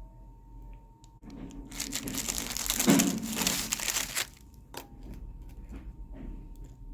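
Food packaging being crumpled and handled, crinkling for about three seconds, followed by a few light ticks and rustles.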